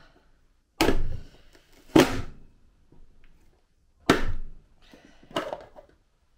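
Manual push-down vegetable dicer being forced shut four times, each a loud thunk as the onion is pushed through the dicing blade grid.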